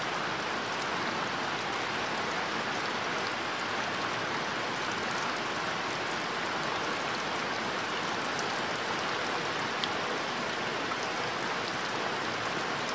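Steady rain falling: an even hiss with scattered light ticks of drops.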